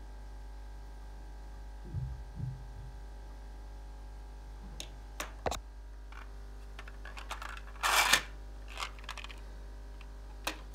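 Small objects handled and set down on a wooden tabletop. A couple of soft low knocks come about two seconds in, then scattered light clicks and a louder brief clatter about eight seconds in, over a steady low hum.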